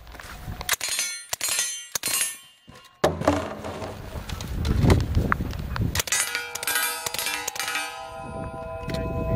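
Shots from a suppressed M11/9 submachine gun and the ringing clang of bullets striking steel targets. The hits come in two strings, about a second in and again around six to eight seconds in.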